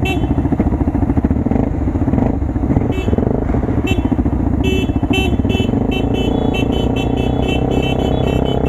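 Honda XR250 Tornado's single-cylinder engine running steadily while the motorcycle is ridden along a road.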